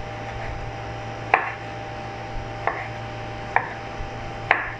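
Kitchen knife slicing a tomato on a wooden cutting board: four sharp knocks of the blade on the board, roughly a second apart, over a steady low hum.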